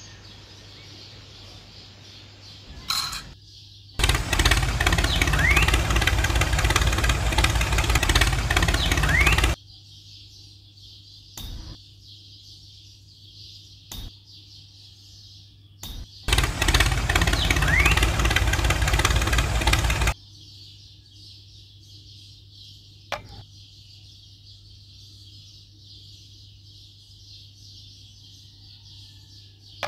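Engine-like machine noise in two stretches of about five and four seconds, each cutting in and out abruptly, with a few short clicks between them. A steady high hiss runs underneath.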